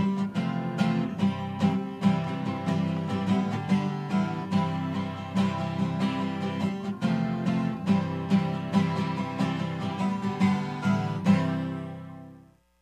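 Instrumental theme music led by acoustic guitar, plucked and strummed at a steady beat. It fades out near the end.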